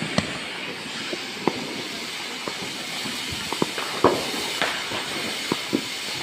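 Ground fountain firework hissing steadily as it sprays sparks, with scattered firecracker pops and bangs throughout, the loudest about four seconds in.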